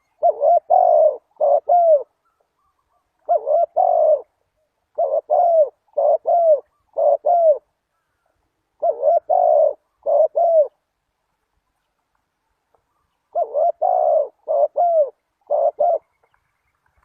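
Spotted dove cooing: five phrases of two to four short, arched coo notes each, with pauses of one to three seconds between phrases.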